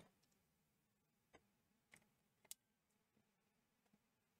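Near silence with three faint clicks about half a second apart midway: parts of a Hakko FR301 desoldering gun being handled and fitted back together.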